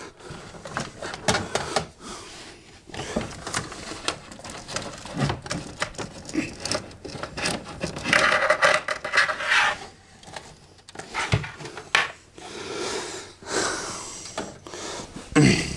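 Hands rummaging through cables and plugs in a wooden TV cabinet: irregular knocks, clicks and rattles, with a longer grating scrape a little past halfway.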